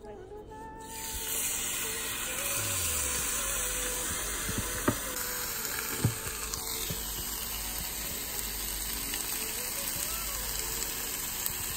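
Chicken breast sizzling on the hot plates of a George Foreman contact grill, a steady hiss that starts about a second in. A couple of light knocks sound near the middle.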